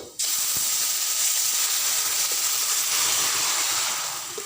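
Smoking-hot oil with fried garlic poured into the stewed beef shank, which sets off a loud, steady sizzle. The sizzle starts suddenly as the oil goes in and eases a little near the end.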